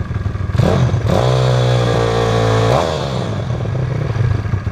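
Motoped Pro's Piranha 150cc single-cylinder four-stroke engine blipped from idle: it revs up about half a second in, holds high revs steadily for about a second and a half, then drops back to idle. The engine is running on a carburetor whose main jet has just been adjusted.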